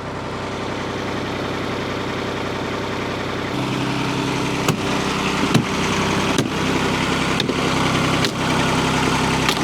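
Kubota D902 three-cylinder diesel in a Hightop HT20 Pro mini excavator, idling steadily. Its note grows fuller and louder about a third of the way in, and sharp clicks come about once a second after that.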